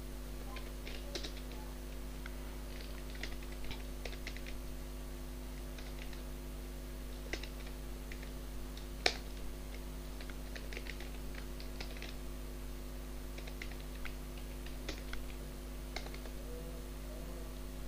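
Computer keyboard typing in short runs of keystrokes with pauses between, one sharper, louder key click about nine seconds in, over a steady electrical hum.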